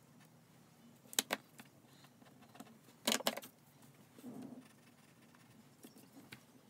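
A graphite pencil being handled on paper at a desk: two sharp clicks about a second in and a quick cluster of clicks about three seconds in as the pencil is regripped and knocked against the paper and desk, with faint pencil scratching between.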